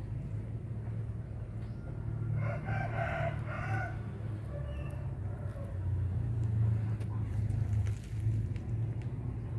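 A rooster crowing once, starting about two seconds in and lasting a couple of seconds, over a steady low rumble.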